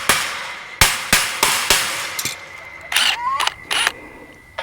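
Sharp metal knocks, about seven irregular strikes, like hammer blows on a gate hinge or its bolt being driven into place. A short animal call comes in about three seconds in.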